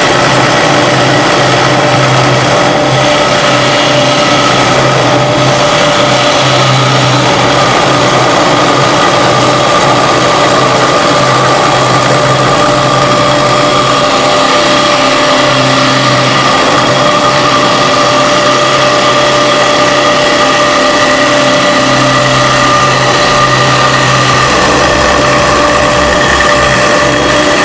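Double-spindle CNC wood lathe milling two spinning wooden balusters: the router spindles give a steady high whine over the dense noise of the cutters cutting the wood.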